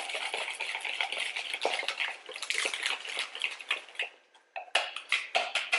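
Wire whisk beating thick muffin batter in a plastic mixing bowl: continuous scraping and clicking of the wires against the bowl. There is a short pause just after four seconds in, then a run of quicker, sharper strokes.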